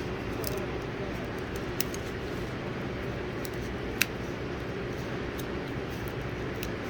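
Light clicks and scrapes of a metal pry tool working under a broken phone screen, with one sharper click about four seconds in, over a steady background hum.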